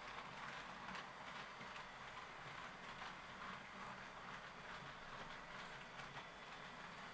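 Faint whir and light, irregular clicking of an HO-scale model train running on its track.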